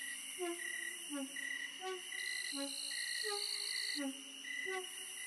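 Night ambience: crickets keep up a steady high drone with short chirps repeating a little under once a second, and a low hooting call sounds about every three quarters of a second.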